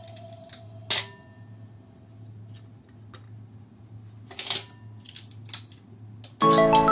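Clam shells clicking against a ceramic bowl and plate as they are picked out and set down: a handful of sharp, separate clicks. Music comes in suddenly near the end.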